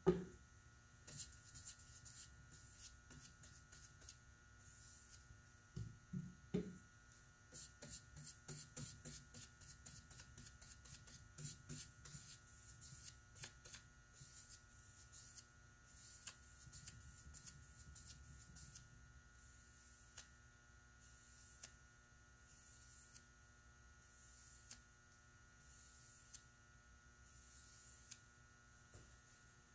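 Paintbrush bristles swishing across a wooden cabinet door as polyurethane is brushed on: a run of short strokes, several a second in the middle, then slower, longer strokes about every second and a half near the end. A sharp knock at the very start as the brush is worked in the metal can.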